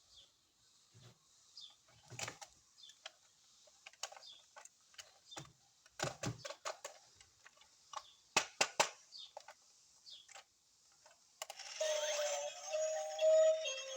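Irregular light clicks and taps, some in quick clusters, of hands handling plastic toy packaging. Music with held notes comes in near the end.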